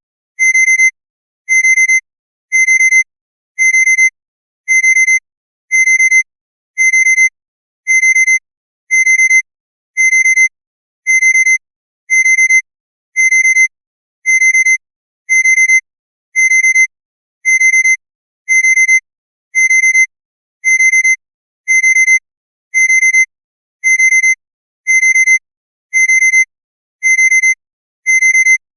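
Honda car's key-in-ignition warning chime: a high electronic beep repeating evenly, about three beeps every two seconds, with no engine sound.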